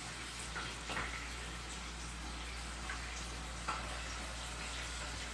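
Faint steady hiss of room noise with a few soft clicks.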